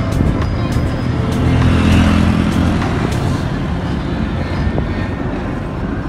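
A vehicle's engine running with road and wind noise while travelling along a paved road. The engine tone swells for a couple of seconds about one and a half seconds in, with scattered short knocks throughout.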